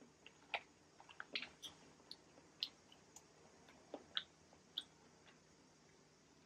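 A person chewing food with the mouth close to the microphone: a scattered run of soft wet mouth clicks and smacks that stops about five seconds in.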